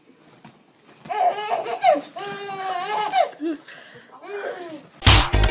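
A baby laughing in a run of high-pitched squealing peals from about a second in, with one more short peal near the end. Loud music cuts in abruptly just before the end.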